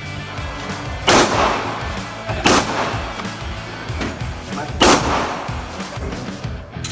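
Three pistol shots, the second about a second and a half after the first and the third over two seconds later, each with a short ringing echo off the walls of an indoor range, over background music.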